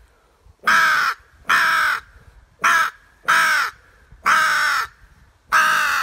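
Hand-blown wooden crow call giving six loud caws, about a second apart, some short and some drawn out.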